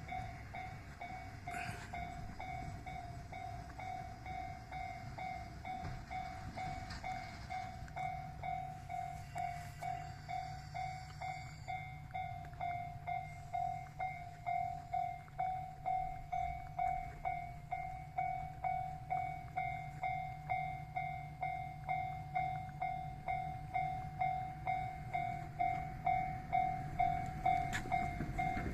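Japanese level-crossing warning bell ringing in a steady electronic ding, a bit faster than once a second, signalling a train approaching. About eight seconds in, a low steady hum joins it, and the sound grows louder toward the end.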